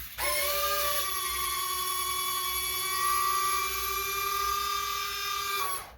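Electric retractable landing gear of an FMS 1500 mm P-47 RC warbird lowering: a steady whine of several small gear motors. One tone drops out about a second in, and the rest stop together near the end as the gear locks down.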